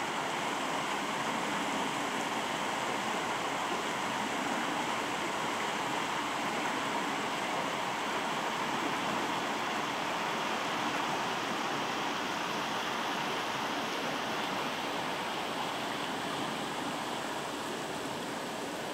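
River water rushing steadily over a shallow riffle or low weir, a constant even rush.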